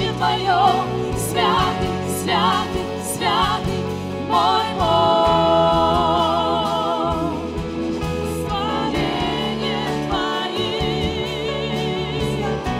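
Live Christian worship song: female voices singing a slow melody with vibrato over a band of guitars, keyboards and bass, holding one long note about five seconds in.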